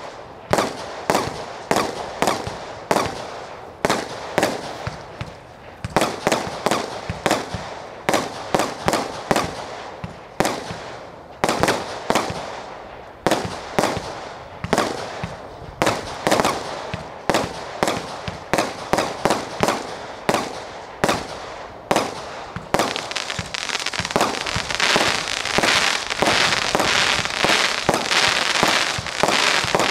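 Heavenly Stars ashes tribute fireworks firing shot after shot, each a sharp bang about two a second. About two-thirds of the way in, the firing turns into a denser, near-continuous volley with crackling.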